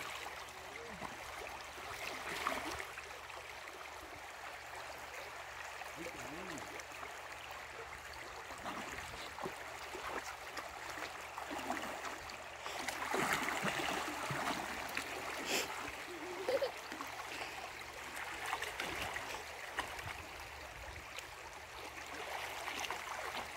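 Shallow river running over rocks, with splashing from a child swimming in it, louder for a few seconds around the middle.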